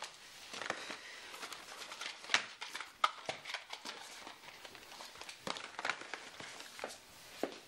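Small cardboard medicine boxes being handled and lifted out of a cardboard carton: irregular rustling with light clicks and taps, a couple of sharper taps a few seconds in.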